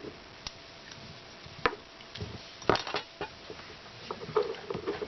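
Silicone tubing being cut by hand: a few separate sharp snips or clicks, the loudest about one and a half and two and a half seconds in, with small handling noises between them.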